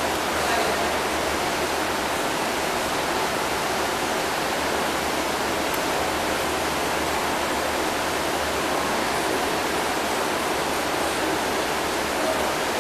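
Aquarium tank water circulation and aeration: a steady rushing hiss like running water, with a faint low hum beneath it.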